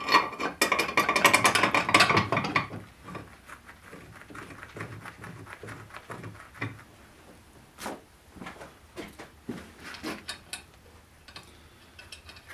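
Steel bolts, nuts and hitch parts being handled: a quick run of metallic clinking and rattling for the first couple of seconds, then scattered knocks and clicks.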